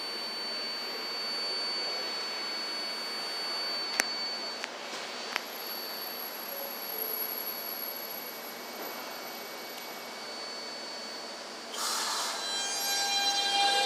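Subway train pulling out along an elevated line, a steady high whine from its motors fading as it moves away, with a couple of sharp clicks from the track. About twelve seconds in, another train's approach sets in, growing louder with several high-pitched whining tones.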